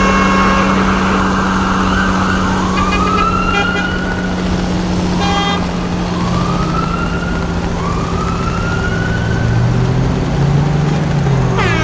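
Electronic toy siren: a series of short rising whoops over a steady electronic hum.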